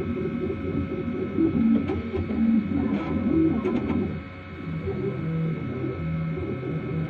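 3D printer's stepper motors whining in short tones that jump from pitch to pitch as the head moves, with a steady higher hum underneath; briefly quieter about four seconds in.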